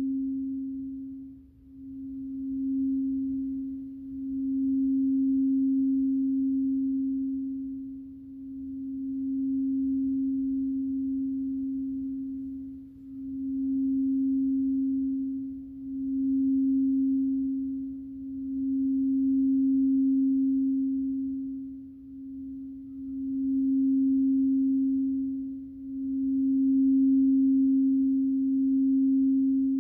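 Frosted quartz crystal singing bowl being rimmed with a mallet, giving one sustained, pure humming tone with a faint higher overtone. The tone swells and dips in slow waves every few seconds.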